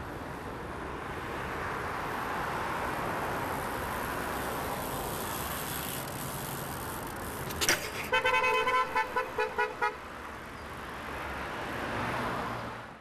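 Steady outdoor traffic and wind noise. About eight seconds in there is a sharp click, then a rapid run of about eight short car-horn beeps in under two seconds.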